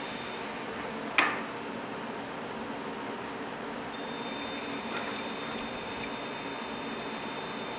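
Steady machine hiss, like a fan or air conditioning, with one sharp click about a second in and a couple of fainter ticks later. A faint high whine joins about four seconds in.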